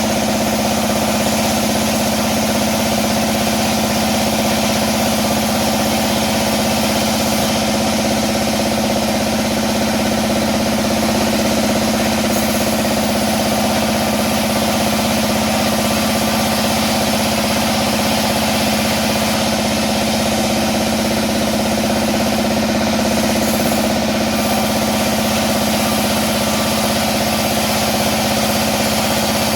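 Sawmill band saw running steadily, a loud constant hum with no breaks or changes in pitch.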